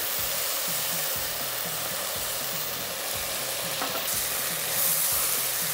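Root beer sizzling in a hot pan of seared vegetables and tomato paste, stirred and scraped with a spoon to deglaze the browned fond off the bottom.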